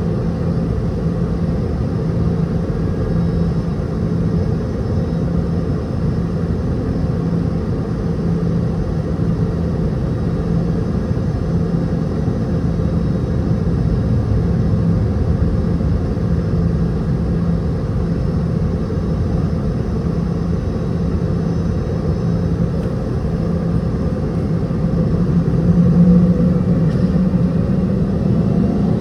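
Boeing 717-200 cabin noise heard from a rear seat: a steady rumble and hum from the tail-mounted Rolls-Royce BR715 turbofans at low power. Near the end a tone starts to rise in pitch.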